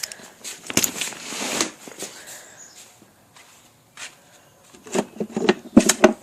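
Rustling and scraping as a metal combination padlock and its dial are handled, then a quick run of light clicks and knocks near the end.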